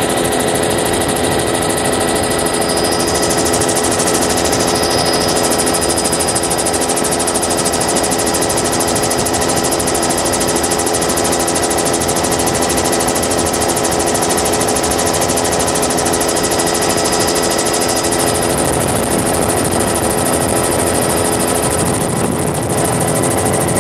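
Helicopter in flight heard from aboard: a loud, steady engine and rotor noise with several constant pitched tones running through it.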